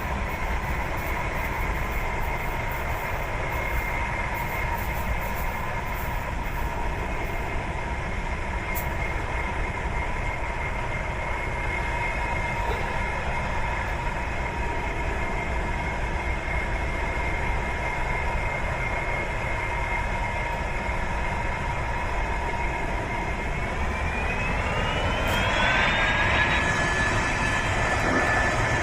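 Jet airliner engines running with a steady rumble and a high whine; about 24 seconds in the whine rises in pitch and then holds as the engines spool up.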